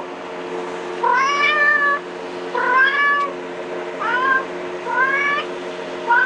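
Recorded kitten meows played through a phone speaker: about five short, high mews rising in pitch, roughly one a second, over a steady low hum.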